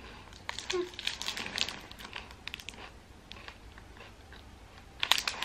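Foil wrapper of a chocolate-coated protein bar crinkling, with crisp crunching as the bar's rice-crisp centre is bitten and chewed. There is a fresh burst of wrapper crinkle near the end.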